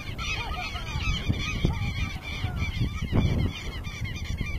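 Many birds calling at once: a dense, continuous stream of short arched chirps overlapping one another, over a low rumble.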